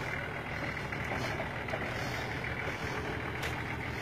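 Nissan Patrol 4WD's engine running steadily at low revs as the vehicle crawls slowly over a steep dirt track.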